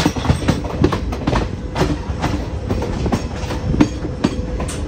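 ICF passenger coach running at speed on the rails: steady rumble with the wheels clacking in quick, irregular knocks over the rail joints.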